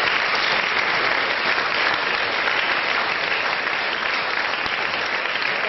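A large audience applauding, loud and sustained, easing off slightly near the end.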